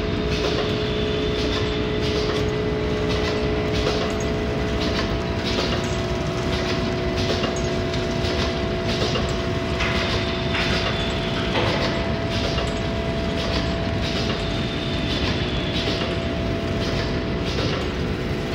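Small wet-wipe packing machine running: a steady mechanical hum and rumble with an even clacking of about two strokes a second as it seals and cuts the single-sachet packs.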